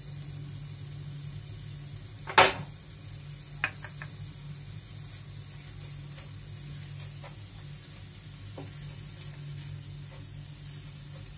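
Slotted wooden spatula stirring grated coconut and melting jaggery in a nonstick pan with freshly added ghee: faint sizzling and scraping over a low steady hum. A sharp knock of the spatula or spoon against the pan comes about two seconds in and is the loudest sound, with a smaller knock a second later and light ticks after.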